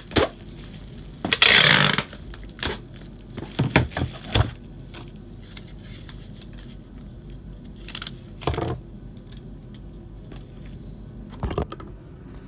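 Handling noise from hard objects: a short scraping rustle, then scattered clicks and knocks.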